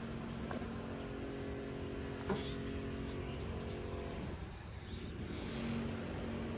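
A motor vehicle engine running steadily in the background, with a few sharp clicks and one louder clank a little after two seconds in.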